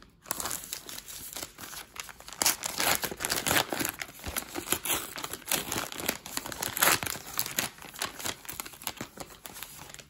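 Wrapper of a Beehive hockey card pack being torn open and crinkled by hand: a dense run of irregular rustles and crackles.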